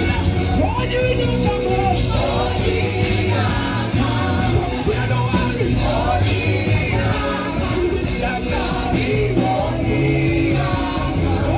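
Live gospel worship music: singers and a choir over a full band with bass, drums and guitar.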